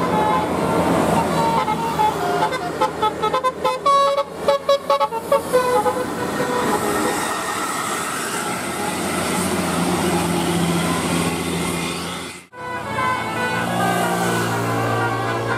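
Telolet bus horn playing a quick melody of short staccato multi-tone notes over the bus's running engine. After a sudden break near the end, a lower held horn tone sounds.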